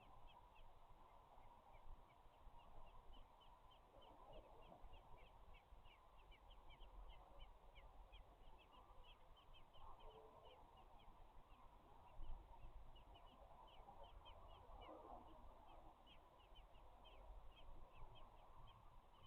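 Faint, rapid high chirps of small birds, about three or four a second, over a low rumble.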